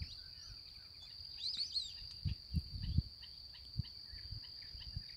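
Steady high-pitched drone of insects such as crickets, with a quick burst of high bird calls about a second and a half in and scattered short chirps after. A few low thumps come between two and four seconds in.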